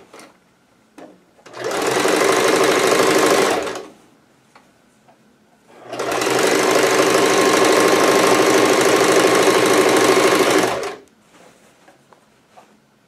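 Household sewing machine stitching a trouser inseam in two runs: about two seconds of stitching, a pause of about two seconds, then about five seconds more. A few faint clicks fall in the quiet gaps.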